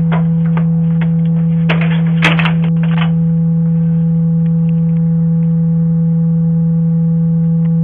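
Loud, steady electrical hum picked up by a doorbell camera's microphone, with a scatter of clicks and crackles in the first three seconds.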